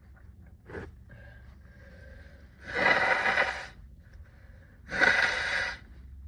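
A person's sneezing fit: a sharp intake of breath about a second in, short pitched catching breaths, then two sneezes muffled into a sleeve, about two seconds apart, the first a little longer.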